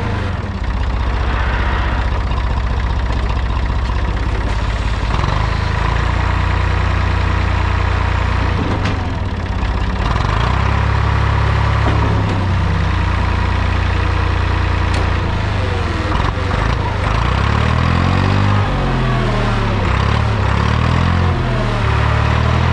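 Massey Ferguson MF30E tractor's Perkins diesel engine running steadily. Its speed shifts a few times, and near the end the pitch rises and falls several times as the engine revs up and down.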